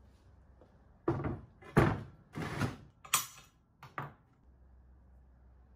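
Flat steel plate laid down on a wooden workbench and handled into place, with small items set on it: a string of about six knocks and clunks over some three seconds, the loudest near the two-second mark.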